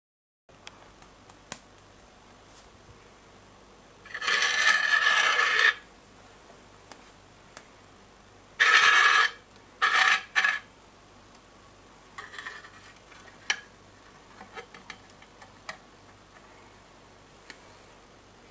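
Metal burner of a Mamod Minor 1 toy steam engine scraped across the tabletop, with a grating squeal: one long scrape of almost two seconds, then two shorter ones a few seconds later. Light clicks and taps follow.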